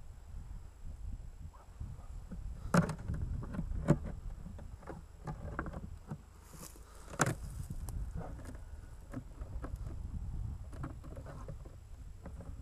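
Wooden bars of a top-bar beehive being lifted and shifted, giving a few sharp knocks of wood on wood, the loudest about three and seven seconds in, over a steady low rumble of wind on the microphone.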